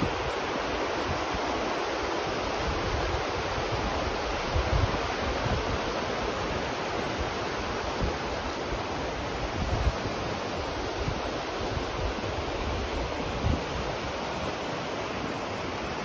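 Varmá river rapids rushing steadily over rocks, with a few short low rumbles of wind buffeting the microphone.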